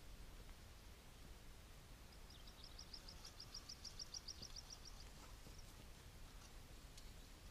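Faint outdoor quiet, broken by a small bird's rapid high trill: about twenty quick, evenly spaced notes at roughly seven a second. The trill starts about two seconds in and lasts about three seconds.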